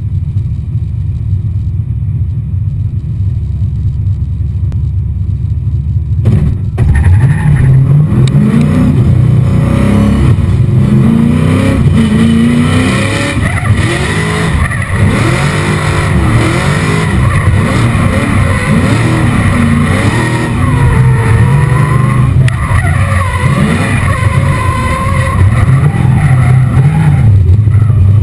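Nissan S13 drift car's 7.0-litre LS7 V8 rumbling at low revs, then from about six seconds in revving hard, the pitch rising and falling again and again as the car is driven through a drift run.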